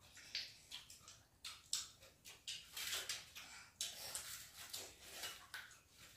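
Several people eating rice and chicken curry with their fingers: an irregular run of close chewing and lip-smacking clicks.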